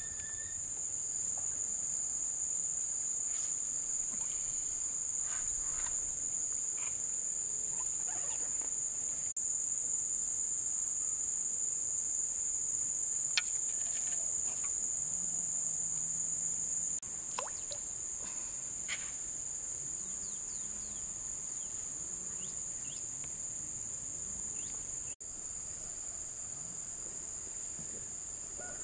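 Steady high-pitched insect chorus, with a few faint clicks and chirps scattered through it.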